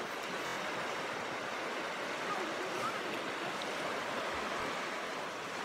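Steady, even rush of a swollen river running high and fast after rain, churning over shallow rapids.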